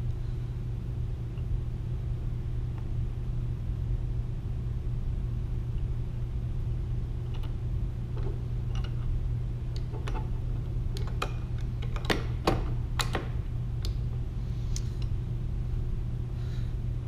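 Steady low room hum, with a few light metallic clicks and taps in the middle stretch as a steel connecting rod cap is handled and seated onto the connecting rod around the crankshaft journal.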